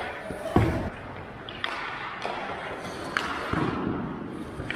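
Ice hockey play around the goal: skate blades scraping the ice and sharp clacks of sticks and puck, with a heavy thump about half a second in and another about three and a half seconds in, in an indoor rink.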